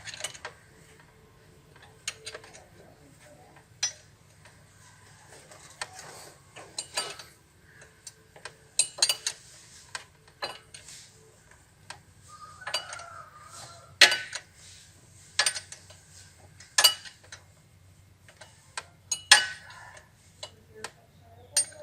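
Metal hand tools clinking and knocking against engine parts, sharp single clinks at irregular intervals with a few short runs of quick ticks, over a low steady hum.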